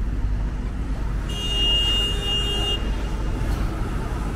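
City street traffic running steadily, with a high-pitched electronic beep that sounds once for about a second and a half.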